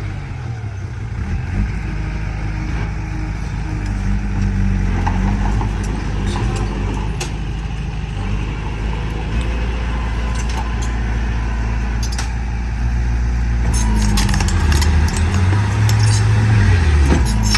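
Heavy diesel engines of a bulldozer and dump truck running under load, the engine note shifting up and down. Sharp metallic clicks and rattles come in the last few seconds.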